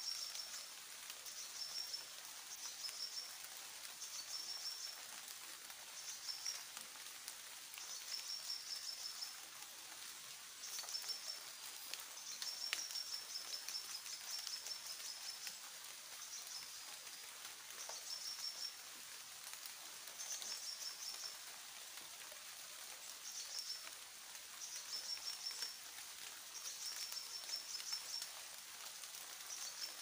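Tropical forest ambience: a faint steady hiss with short, high chirping trills repeating every second or two.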